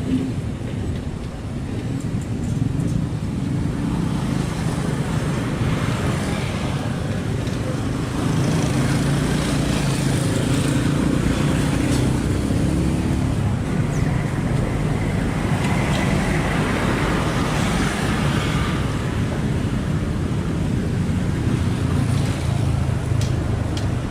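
Kobelco SK75 excavator's diesel engine running steadily under work, growing louder about eight seconds in, with a higher whine for a few seconds in the second half and a few faint knocks.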